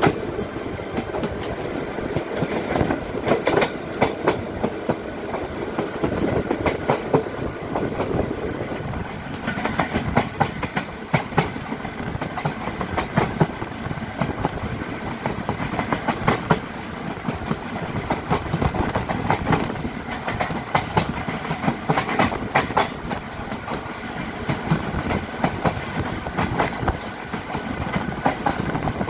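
Wheels of an ICF passenger coach running over rail joints from on board a train gathering speed slowly and steadily: the "rail beats", clusters of sharp clicks every few seconds over a steady rumble.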